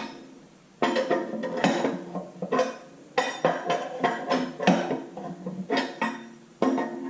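Metal tools and sleeve-puller parts clanking and clinking, in a string of irregular strikes each with a short metallic ring at the same pitches.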